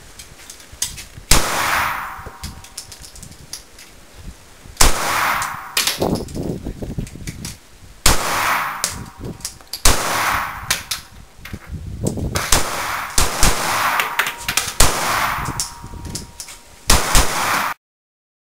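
Caracal 9×19 mm pistol being fired: about eight single shots spaced one to three seconds apart, each followed by a long echo. The sound cuts off suddenly near the end.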